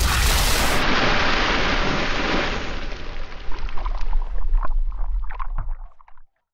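Sound effect for an animated logo reveal: a sudden loud rushing noise burst that fades over about three seconds, then scattered crackling ticks, cutting off about six seconds in.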